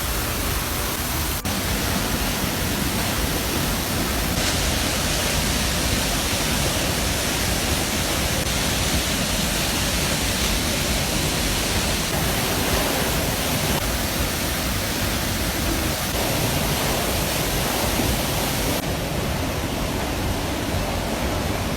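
A waterfall running, a loud, steady rush of falling water.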